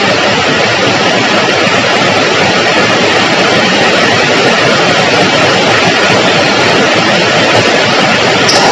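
Heavy rain falling: a loud, steady, even hiss with no breaks.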